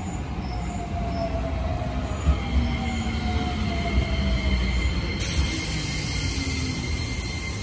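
Keikyu 1000-series electric train pulling in along the platform, wheels rumbling on the rails as its motor whine falls in pitch while it slows. A thin, steady high squeal sets in partway through, and about five seconds in a sudden high hiss starts and holds.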